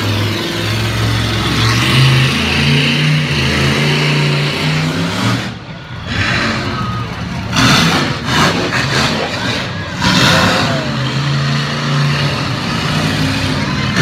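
Monster truck engine revving hard, its pitch climbing over the first five seconds, easing off briefly about six seconds in, then revving again as the truck runs on.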